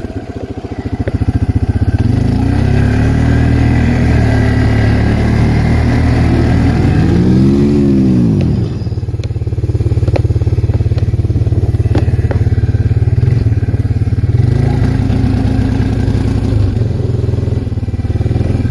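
Arctic Cat 366 ATV's single-cylinder four-stroke engine running under way. It revs up and back down about seven to eight seconds in, then pulls steadily, with a few knocks and clatter from the machine.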